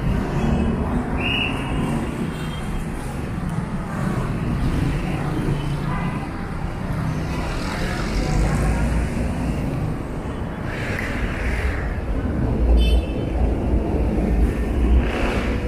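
Street traffic: motorcycles and motorized tricycles passing, with a steady low engine rumble and a few brief louder swells as vehicles go by.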